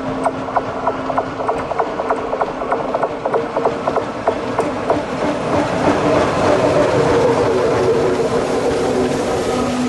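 Train hauled by the 1916 Bernina Railway electric locomotive BB 81 passing, with a steady hum and a rapid, even clicking of about three or four clicks a second. About halfway through, the clicking gives way to the louder rolling rumble of the coaches' wheels going by close at hand.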